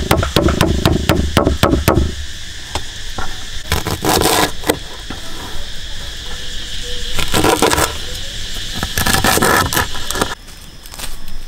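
A knife chopping rapidly into a sugarcane stalk on a wooden board for about two seconds. The split sugarcane is then torn apart by hand in three short, rough, fibrous bursts. Insects buzz steadily throughout.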